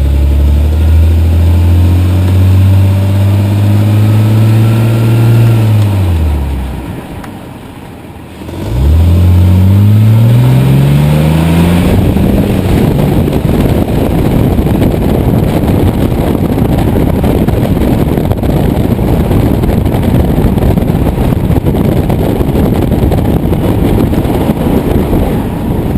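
2001 BMW 330i's inline-six engine: a steady engine note falls away about five seconds in, then climbs again as the engine revs up about nine seconds in. From about twelve seconds a dense rattling noise covers the engine note.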